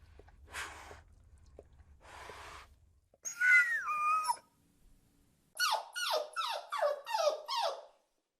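Dog whining once, then a quick run of about seven yelps, each falling in pitch. Soft breathy sounds come before.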